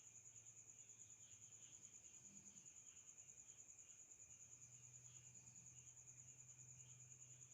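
Faint, steady high-pitched trill of crickets, pulsing rapidly without pause, over a low hum.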